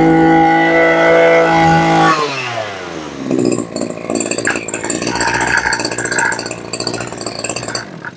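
Maruyama KC20A 20cc two-stroke brush cutter engine running at high throttle, then the revs fall away about two seconds in and it idles roughly with a rattle before cutting out near the end.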